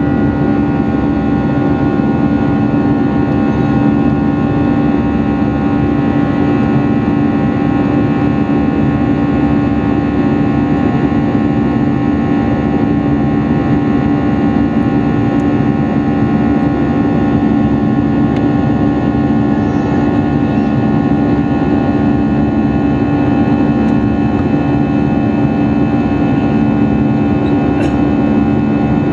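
Airbus A320-200 cabin noise in flight: the jet engines and airflow make a steady loud rush with a constant hum of several tones.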